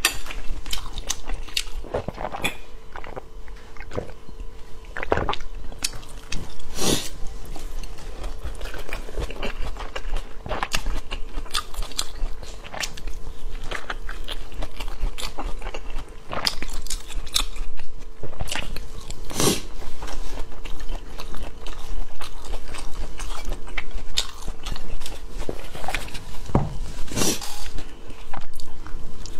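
Close-miked chewing and biting of guozi bing, rolled flatbreads with a shredded filling: a run of irregular crunchy clicks, a few of them sharper and louder, over a faint steady hum.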